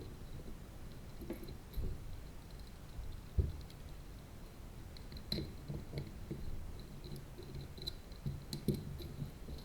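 Light clicks and taps of small parts being handled as standoffs are fitted onto a CubeSat circuit-board stack, with a soft knock about three and a half seconds in.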